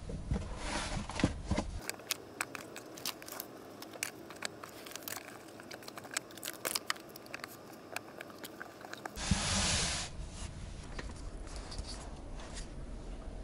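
Books, folders and papers being handled and set into a fabric storage box: a run of light knocks, taps and paper rustles, with a short louder rush of rustling about two-thirds of the way through.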